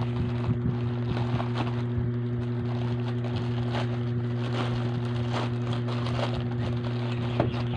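Steady low hum throughout, with the crinkle and rustle of a plastic courier pouch being handled and pulled open.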